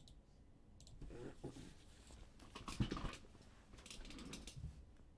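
Faint, irregular clicks and rustling as trading-card boxes and packs are handled and opened, with a sharp click about a second in.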